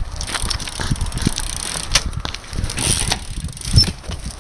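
BMX bike being ridden through tricks: tyre noise with irregular knocks and rattles from the bike.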